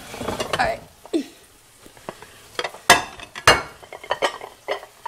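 Beef sizzling faintly in a nonstick frying pan as it is stirred, with a run of sharp clinks of utensils and dishes against the pan about halfway through, the loudest two near the middle.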